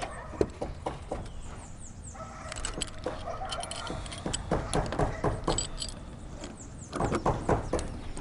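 Footsteps and hard clacks on corrugated fibre-cement roof sheets and ridge caps: a string of short knocks, with a quick cluster near the end.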